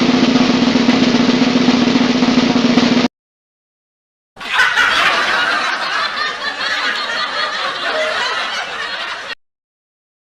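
A snare drum roll that stops abruptly about three seconds in. After a second of silence comes a laughter sound effect, a canned sitcom laugh track, which runs for about five seconds and cuts off.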